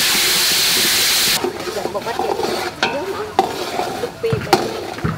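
Chopped dried chili paste sizzling loudly in hot oil in a metal pot while a ladle stirs it. About a second and a half in the sizzle cuts off, and the metal ladle scrapes and knocks against the pot a few times.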